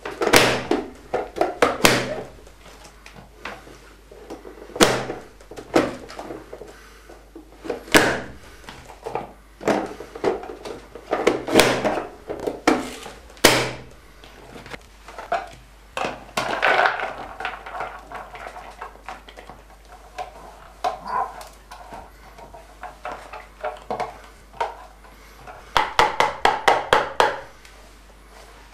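Hand-pressed plastic vegetable dicer snapping shut again and again as onion pieces are forced through its blade grid, each press a sharp clack. Softer scraping and rustling follow, and a quick run of about ten taps near the end.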